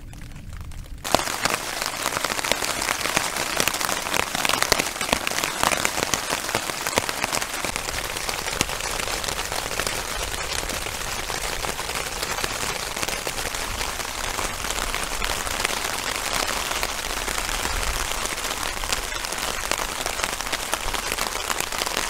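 Heavy rain pattering on the fabric of a Durston X-Mid 2 Pro tent, starting abruptly about a second in and then keeping up a steady, dense hiss with fine crackling drops.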